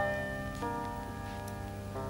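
Background music: soft keyboard chords held and fading away, with a new chord entering about half a second in.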